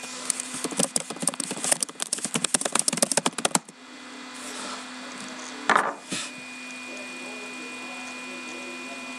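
A rapid, irregular run of sharp clicks for about three and a half seconds, then a single louder knock about six seconds in, over a steady low electrical hum.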